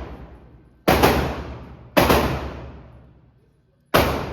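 Glock 25 pistol in .380 ACP firing three shots, two about a second apart and a third about two seconds later. Each shot has a long echoing decay.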